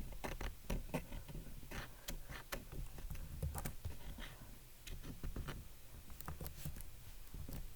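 Irregular, quick clicks of a computer keyboard being typed on, over a low steady hum.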